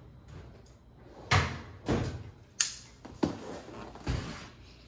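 Handling noises from a cardboard box and a folding knife: about five separate knocks and thumps, one of them a sharper click about halfway through.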